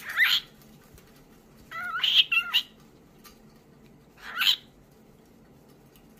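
White cockatoo calling: three short calls about two seconds apart, the middle one broken into several quick syllables with bending pitch.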